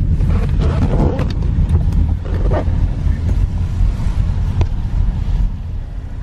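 Car cabin noise while driving: a steady low rumble of the engine and tyres, with a few short clicks and brief mid-pitched sounds over it in the first three seconds.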